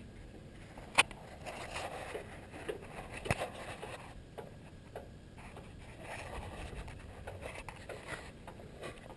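Scattered clicks, knocks and scrapes over a low background. The loudest is a sharp click about a second in, with another strong knock a little after three seconds.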